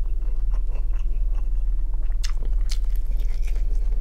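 A man chewing grilled shashlik of fatty neck meat close to the microphone: wet mouth sounds and small clicks, with a few sharper smacks about halfway through. A steady low hum runs underneath.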